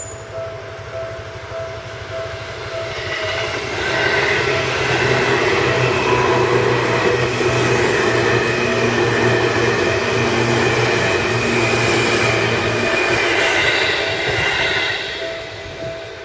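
Japanese level-crossing bell ringing in a steady repeating pattern while a Seibu Haijima Line electric commuter train passes. The train's rumble and running noise swell loud from about four seconds in and ease off near the end, with the bell still ringing.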